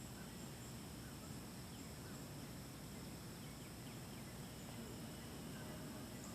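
Faint outdoor ambience: a steady high-pitched insect buzz over a low hiss, with a few faint bird chirps.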